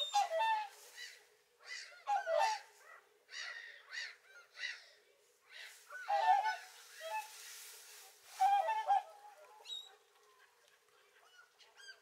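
A flock of whooper swans calling, loud overlapping honking whoops in repeated bursts through the first nine seconds, then only a few faint calls. A stretch of rushing noise runs under the calls in the middle.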